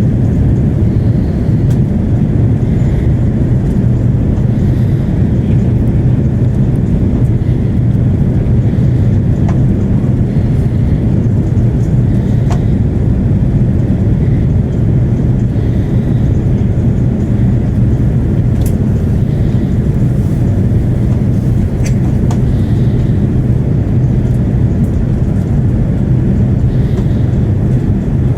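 Cabin noise inside an Airbus A330-300 on descent: a steady, loud low drone of engines and airflow, with a few faint ticks.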